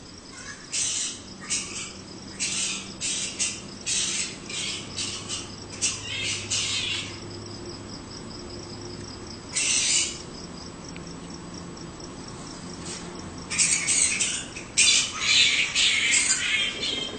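Short, harsh squawking calls from an animal, coming in quick clusters: a run of them at the start, a single call about ten seconds in, and a louder run near the end. A faint, steady, evenly ticking insect chirp runs beneath them.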